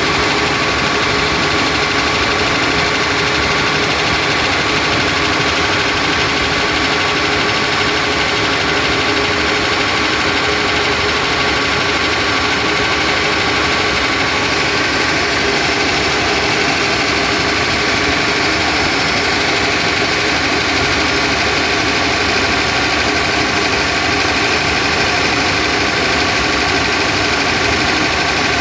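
NEF67TE8W six-cylinder diesel engine running at a steady speed, with an odd noise that the owner traces to the combustion chamber.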